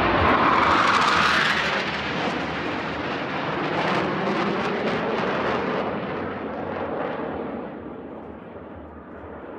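Jet roar of four Northrop F-5E Tiger II jets flying past in close formation. It is loudest in the first two seconds, then fades steadily as the formation flies off.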